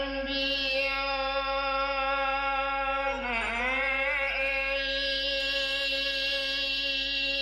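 Rabab pasisia selatan music: a bowed fiddle plays long held notes with vibrato. The line dips in pitch and comes back up about three and a half seconds in.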